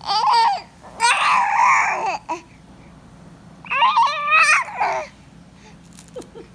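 Young baby babbling and cooing: three high-pitched vocal sounds with wavering, sliding pitch, the second and third longer, with short pauses between them.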